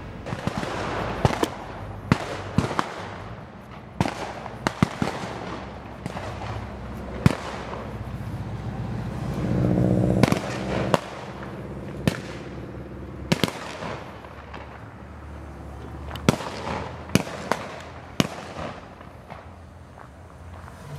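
York 17 replica steam locomotive running at low speed, with sharp cracks and pops at irregular intervals and a short, low whistle blast about ten seconds in.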